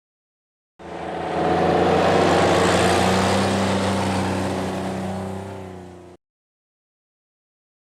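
Old truck driving past, its engine hum swelling over about a second, holding, then slowly fading before cutting off abruptly.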